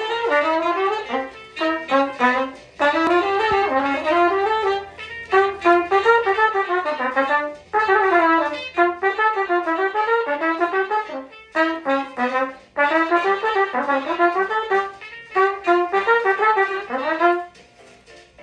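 A single wind instrument playing fast, jazz-like melodic runs alone, in phrases of a second or two broken by short pauses for breath.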